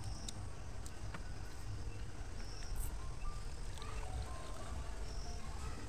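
Faint outdoor background: a steady low rumble with a few short, high chirps and light clicks, likely the metal spoon against the basin as wet fish are scooped out.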